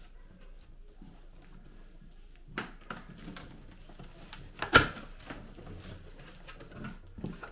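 Cardboard packaging being handled and opened: scattered knocks and rustles, with one sharp loud thump a little past halfway.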